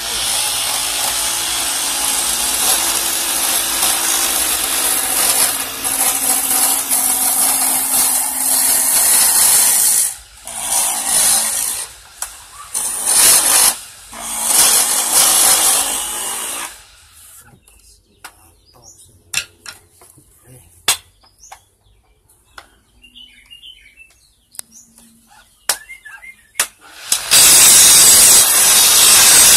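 A hand chisel cuts a wooden mallet handle spinning on a belt-driven wood lathe, giving a loud, even scraping hiss for about ten seconds. Several shorter cuts follow, then a quieter stretch with scattered light clicks, and the cutting hiss comes back near the end.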